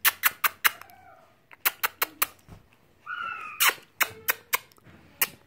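A baby's brief high coos, one about a second in and a higher one about three seconds in, among runs of sharp clicks, three or four at a time.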